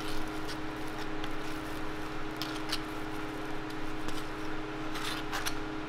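Metal spatula scooping and spreading whipped cream on a waffle, with a few short scrapes against the cream tub, two near the middle and two near the end, over a steady background hum.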